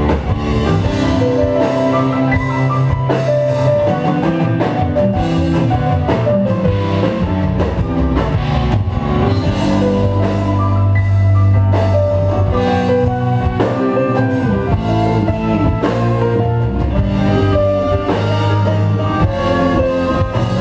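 Progressive rock band playing live on drum kit, bass guitar, keyboards and electric guitar, a loud, continuous stretch of the song.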